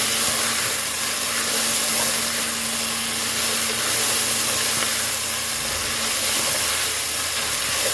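Frozen okra frying in hot oil in a pot, a steady loud sizzle as the water from the frozen pieces cooks off.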